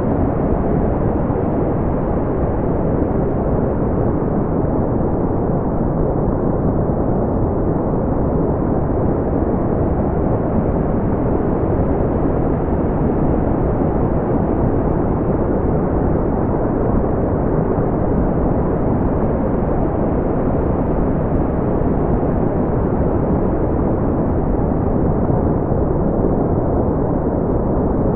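Generated brown noise: a steady, even, deep rushing hiss, heaviest in the low end and dull at the top, with no change in level.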